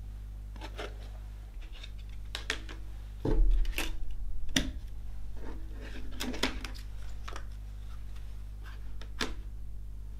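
Plastic CD jewel case being handled: a series of sharp clicks and taps as the disc is pressed into the tray and the case is shut and set on a wooden table, with one heavier thump about three seconds in.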